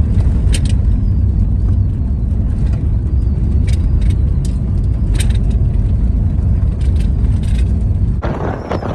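Car on the move, a steady, loud low road rumble with scattered sharp ticks; the sound changes abruptly near the end.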